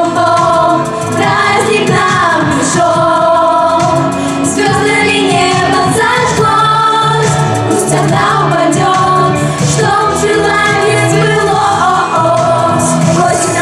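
Vocal pop ensemble singing a New Year song together over pop instrumental accompaniment with a steady beat.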